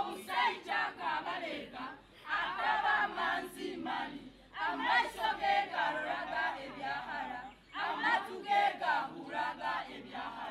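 A group of voices singing and chanting together without instruments, in phrases of two to three seconds separated by brief pauses.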